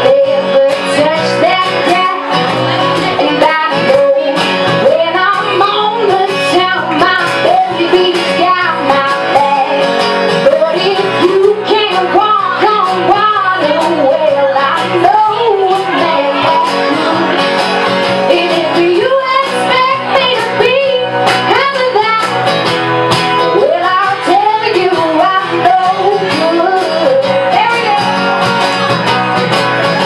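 A woman singing a song into a microphone, accompanied by an acoustic guitar.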